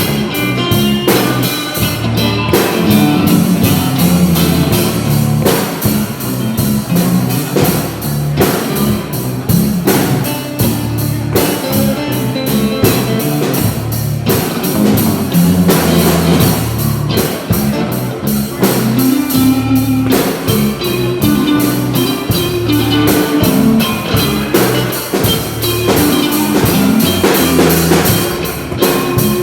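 Rock band playing an instrumental passage: electric guitar over bass, with a drum kit keeping a steady beat.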